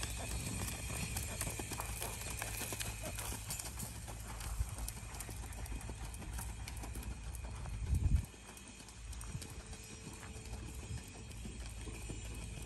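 Hoofbeats of a ridden horse moving over a sand arena, a run of soft irregular strikes. A brief louder low rumble comes about eight seconds in.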